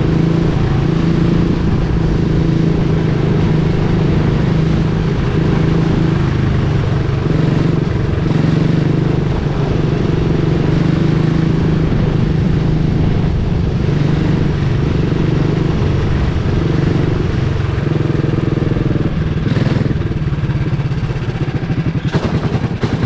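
Onboard sound of a Jr Animal racing kart's single-cylinder four-stroke engine running at a fairly steady speed, with wind and road noise; the running gets uneven right near the end as the kart slows.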